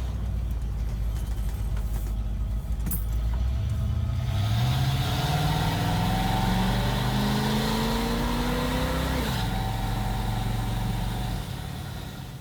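V8 exhaust through Black Widow Neighborhater mufflers while driving: a steady low run, then from about four seconds in the engine pulls and rises in pitch for about five seconds. It drops back abruptly, runs steady again and fades out near the end.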